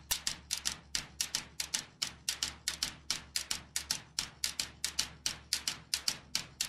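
Rapid, evenly spaced percussive clicking, about five sharp taps a second, over a steady low hum, like a dry percussion pattern at the start of a music track.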